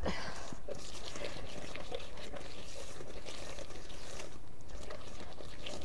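Wire whisk beating a thick butter-and-sugar mixture by hand in a bowl, a steady scraping with faint small clicks.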